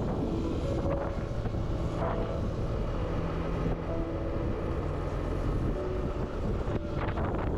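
Yamaha Aerox scooter's engine running steadily under way, with heavy wind noise buffeting the microphone.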